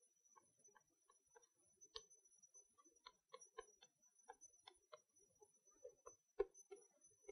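Chalk tapping and scratching on a blackboard as an equation is written: a quick, irregular run of faint clicks, the sharpest about six seconds in.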